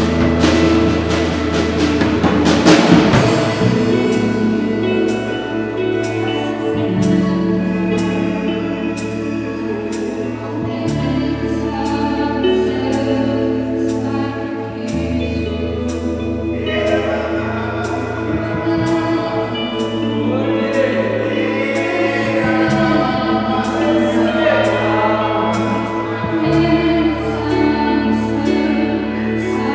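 Live worship music: a band playing sustained chords and bass notes over a steady beat, with a cymbal swell near the start and voices singing from about halfway through.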